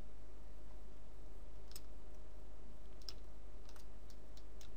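A handful of light, scattered clicks from a computer mouse and keyboard, the first about two seconds in, over a steady low hum.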